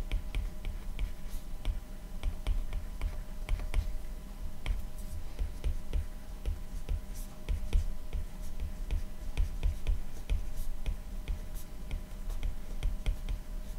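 Stylus tip tapping and scratching on a tablet's glass screen while handwriting words: a quick, irregular run of light clicks with soft low knocks.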